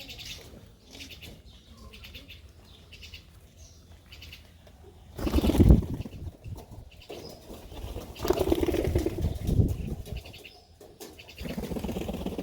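Pigeon wings flapping hard in bursts: the loudest comes about five seconds in, with more from about eight to ten seconds and again near the end. Faint bird chirps are heard between the bursts.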